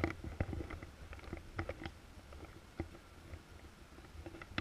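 Irregular knocks and thumps of children clambering into a large hollow ring sculpture, their shoes and bodies bumping against its inside; the loudest thump comes right at the start.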